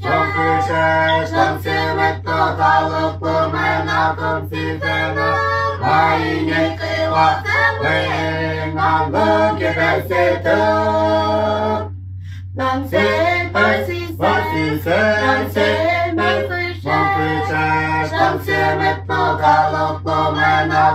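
A small group of women's and children's voices singing a song together in unison, with a brief pause for breath about twelve seconds in. A steady low hum runs beneath the singing.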